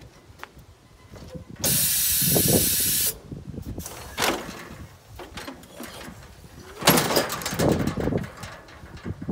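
A ShearEzy sheep-handling machine hissing loudly for about a second and a half as air is let through it. Metal clanks and rattles follow as its galvanised crate moves and tips the ram onto its back.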